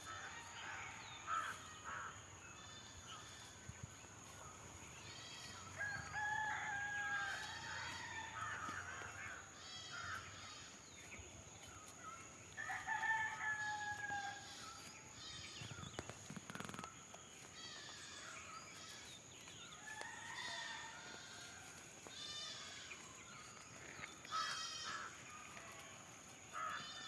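A rooster crowing, two long calls that fall slightly in pitch, with shorter calls between, over many short high bird chirps and a steady high insect whine.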